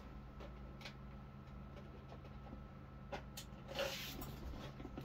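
Faint, scattered clicks and light handling noises from small plastic figure accessories being picked up, over a low steady hum.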